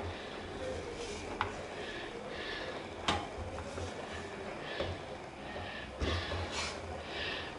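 Spatula scraping and stirring a crumbly flour dough in a metal frying pan, with a few sharp knocks of the spatula against the pan. This is flour being worked into hot liquid to form a dough.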